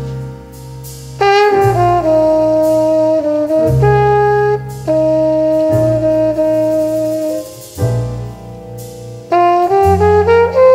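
Jazz background music: held horn chords over a steady bass line, in phrases of a couple of seconds each.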